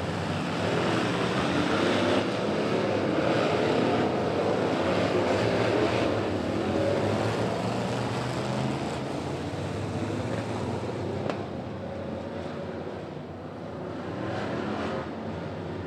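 A field of Sportsman dirt late model race cars with V8 engines running at pace speed as they pass, louder in the first half and easing off toward the end. One sharp click comes about two-thirds of the way through.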